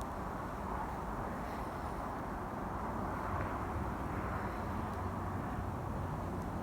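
Steady outdoor background noise: an even hiss with a faint low hum underneath and no distinct events.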